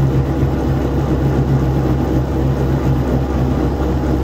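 Half-horsepower electric motor spinning a rewound three-phase alternator, running with a steady hum.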